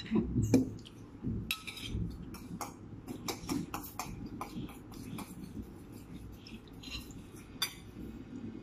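Spoons clinking against a small glass bowl and plates during a meal: a scatter of light, irregular clicks.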